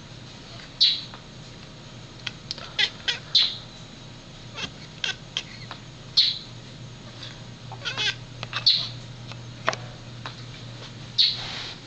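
Domestic cat making weird, baby-like squeaks and chirps at a bird: a short high call every two to three seconds, with runs of quick clicking sounds between them. A steady low hum runs underneath.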